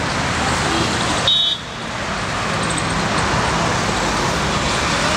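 Steady road traffic noise, with a brief high-pitched vehicle horn toot about a second and a half in.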